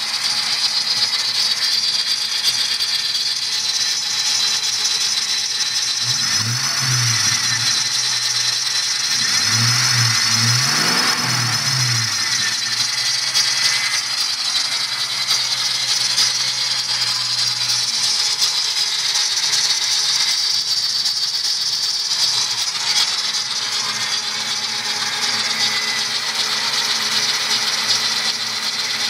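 1997 Mustang Cobra's 4.6-litre DOHC V8 idling with a steady high-pitched squeal over the engine note. The engine is blipped several times about six to twelve seconds in, then settles back to idle. The owner says the squeal climbs with engine RPM and is loudest just after a cold start; its cause is not yet known.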